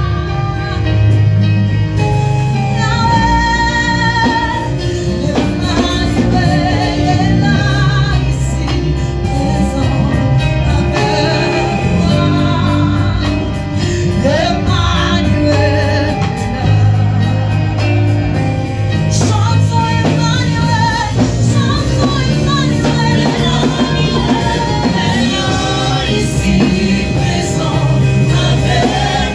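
Live worship music with a band and singers: a gospel song carried by a steady bass line under sung melody.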